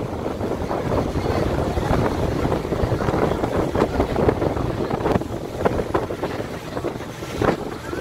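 Wind buffeting the microphone on the deck of a moving ferry, over the low rumble of the boat under way and water rushing past the hull. The gusts rise and fall unevenly.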